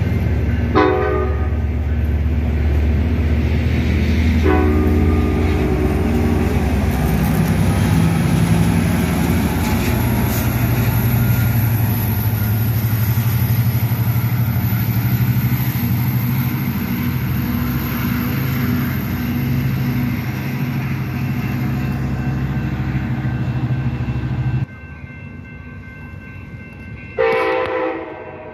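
Passenger train running through the station: a short horn blast, then a longer one about four seconds in, over the steady run of the train. The trailing F59PHI's two-stroke diesel engine runs under load, its note stepping up as it passes. After an abrupt break, an approaching F59PHI sounds its horn once near the end.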